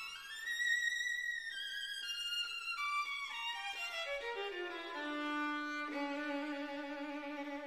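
Background music: a violin melody that rises, then steps down in a descending run and settles on long held low notes.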